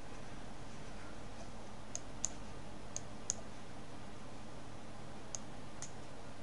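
Computer mouse button clicking six times, mostly in close pairs, over a steady low background hum.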